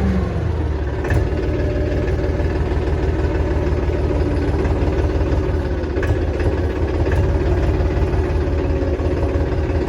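Powertrac Euro 50 tractor's diesel engine idling steadily.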